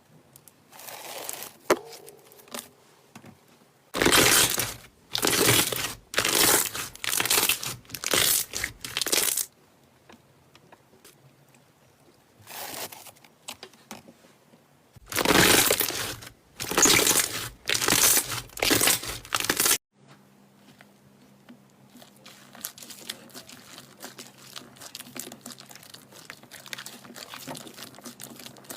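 Slime being squeezed and pressed by hand, giving loud crackling squishes about once a second in two runs. Near the end it turns to a fine, steady crackle.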